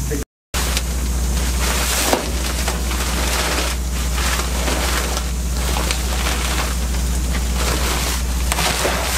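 HBM sandblasting cabinet running: a steady hiss of compressed air and abrasive sand through the blast nozzle, over a steady low hum.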